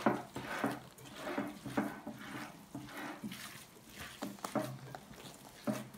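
Gloved hands kneading a wet filling of minced meat, rice, bulgur and onion in a glass plate: irregular soft wet squishes, roughly one or two a second.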